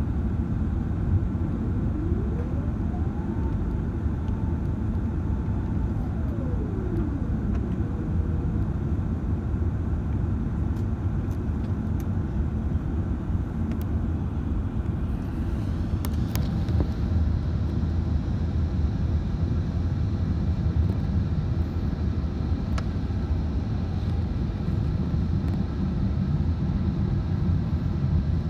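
Steady low cabin roar inside a British Airways Airbus A380 on its landing approach with flaps extended: airflow and its Rolls-Royce Trent 900 engines. A couple of seconds in, a thin whine rises in pitch, holds for about three seconds, then falls away. A few faint clicks follow later.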